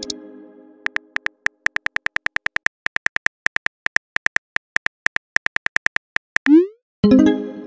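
Texting-app sound effects: a run of short keyboard tap clicks as a message is typed, then a quick rising whoosh as it sends and a ringing chime-like chord near the end. A similar chord is dying away at the start.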